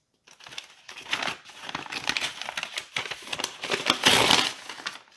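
Brown butcher paper wrapping crinkling and tearing as it is pulled off a taped parcel, in irregular bursts that are loudest about four seconds in.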